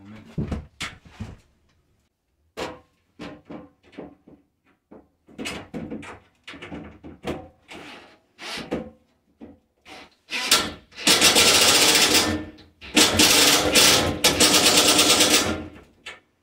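Scattered knocks and clatter as a glass shower door panel is worked into its frame. In the last third, a cordless drill drives screws into the shower frame's brackets in two runs of a few seconds each.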